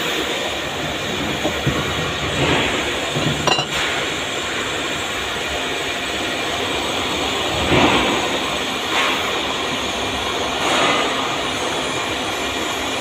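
Steady workshop machinery drone, with several light metallic clinks and knocks as a metal workpiece is seated and clamped in a CNC lathe's chuck jaws.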